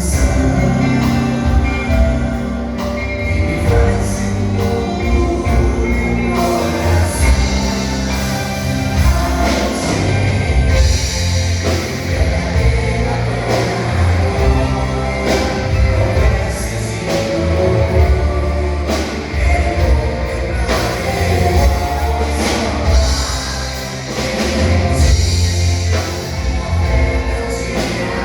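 Church worship singers performing a song with band accompaniment: voices over drums and a bass line that keeps a steady beat.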